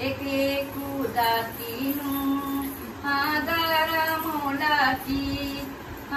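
A woman singing a traditional naming-ceremony song in long held, wavering notes, with a short break just after the fifth second.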